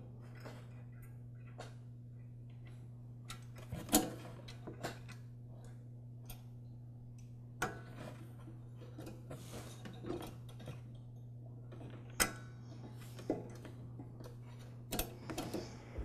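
Scattered small clicks and light metal taps as the linkages are refitted by hand to a lawn mower carburetor, over a steady low hum.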